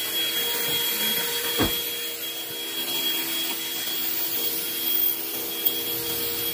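Handheld cordless car vacuum running steadily while it cleans a carpeted floor, with a steady hum and a thin high whine. There is a short knock about one and a half seconds in.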